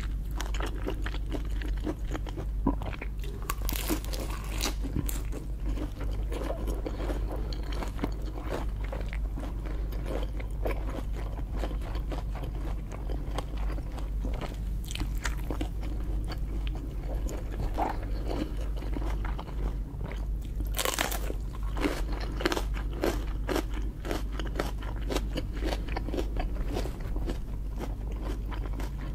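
Crunching and chewing of lobster, with many short cracks and crackles as the shell and meat are bitten. A steady low hum runs underneath.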